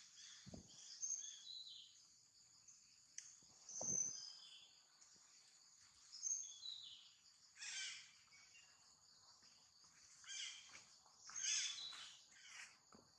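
Faint outdoor ambience: a steady high insect drone, with scattered short bird chirps and a few louder, harsher animal calls in the second half.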